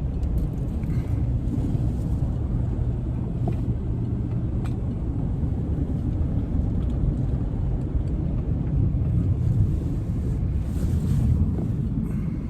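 A vehicle engine running steadily at low speed while manoeuvring in the snow, with wind noise on the microphone.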